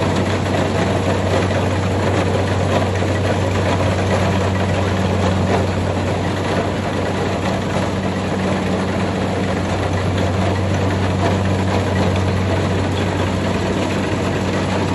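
Kubota rice combine harvester running steadily: a constant low diesel engine hum under a dense, even machinery noise, with no change in speed.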